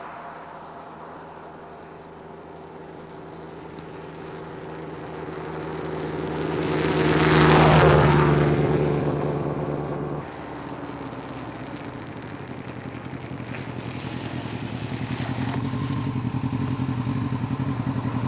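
A motor vehicle passes close by, swelling to a peak around the middle and then fading. Then a Yamaha YZF-R1 sport motorcycle's engine approaches on an icy road, growing steadily louder.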